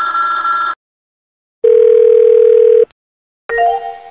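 AIM instant-messenger phone sound effects played one after another: a short electronic sound that stops under a second in, then a single steady telephone-like tone with a slight warble held for about a second. Near the end a brief ring sound starts and fades.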